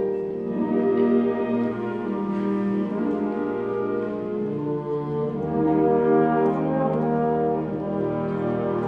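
Wind orchestra playing a Christmas carol, with the brass to the fore in slow, held chords that change about once a second.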